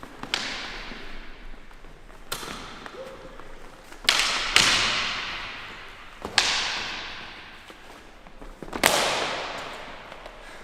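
Steel sword blades, cutlass against sabre, clashing in sparring: about six sharp strikes, each ringing out and fading over a second or two. The loudest clashes come about halfway through and near the end.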